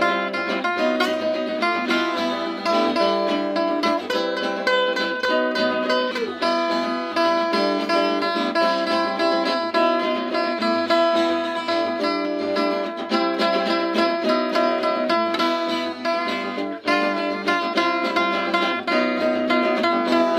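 Acoustic guitars playing an instrumental passage, with busy strummed and picked notes throughout.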